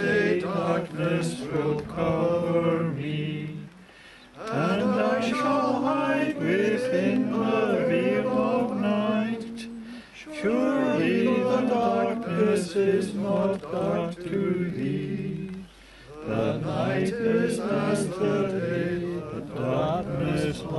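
A group of people singing a hymn unaccompanied, in four long sung lines with a short break for breath between each.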